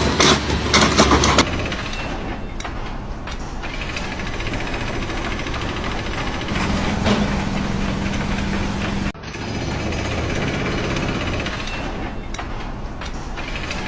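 An engine running steadily, with abrupt changes about a second and a half in and about nine seconds in.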